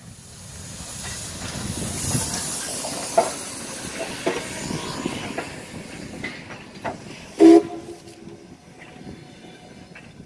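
Steam locomotive passing close by with loud steam hiss that swells about two seconds in, followed by passenger coaches rolling past with wheel clicks over the rail joints. One short, loud pitched blast about seven and a half seconds in.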